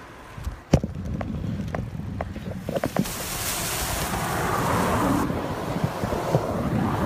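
Wind rushing over a phone's microphone while riding a bicycle, with a steady low rumble, a sharp knock about a second in and a few smaller clicks from the phone being handled. The rush swells a few seconds in, then drops off suddenly.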